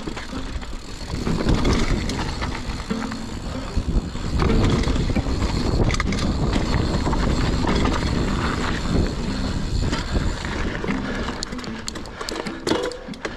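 Mountain bike ridden along a dirt trail: a steady rumble of tyres and wind buffeting the microphone, with a burst of rattling clicks near the end.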